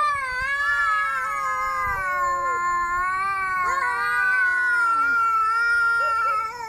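A cat's long, drawn-out yowl that wavers in pitch and fades near the end: the warning caterwaul of an angry cat.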